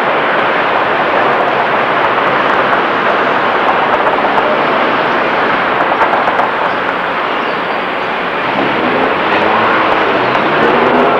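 City street traffic noise picked up by an old camcorder's built-in microphone: a steady, even wash of noise with no distinct events, dipping slightly about eight seconds in.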